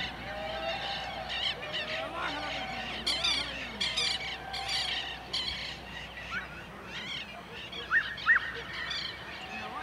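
Harsh honking bird calls, repeated in quick runs, with a few short rising chirps near the end.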